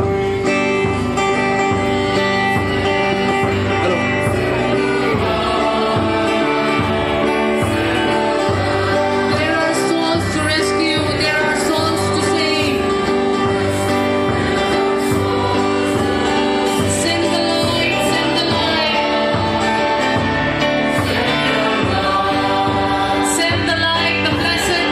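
Mixed choir of men and women singing a gospel hymn in unison over a steady beat.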